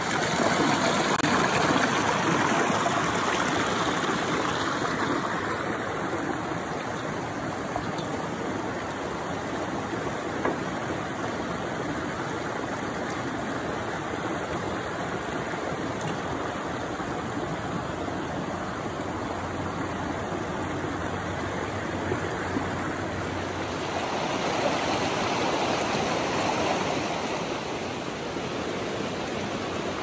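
Shallow stream rushing and splashing over rocks, a steady, even water noise.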